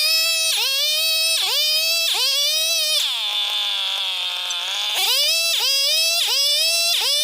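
Electronic background music: a synth note that swoops down and back up, repeated about twice a second, with a held high note for about two seconds partway through.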